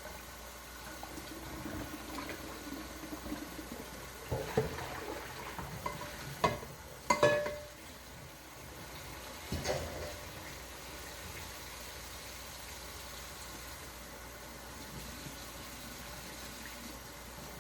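Kitchenware clattering several times over a faint steady hiss. The loudest clatter, about seven seconds in, is a clink with a short ring.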